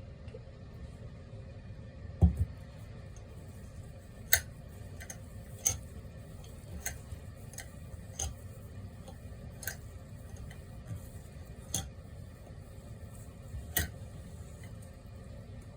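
Hard items clinking and tapping now and then, about ten sharp clicks spread through the stretch, with a duller, heavier knock about two seconds in, over a steady low hum.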